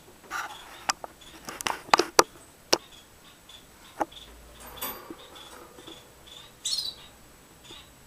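Canary giving a few short chirps, one a quick falling call near the end, with several sharp clicks in the first half.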